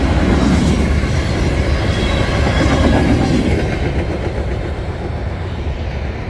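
Norfolk Southern mixed freight train passing at speed: the rushing rumble of steel wheels on the rails as the last hopper and gondola cars go by. The noise fades about halfway through as the end of the train clears the crossing and moves away.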